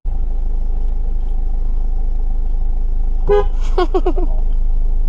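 Car engine idling, a steady low hum heard from inside the car's cabin.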